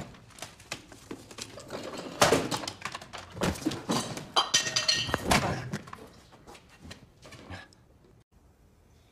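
Things on a cluttered workshop desk being swept and knocked off: a run of knocks, thuds and clattering, loudest in the middle, with a brief ringing clang about four and a half seconds in, dying away after about eight seconds.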